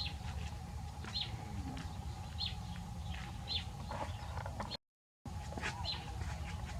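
A bird chirping: short high chirps about once a second over a steady low hum. The sound drops out completely for half a second near the end.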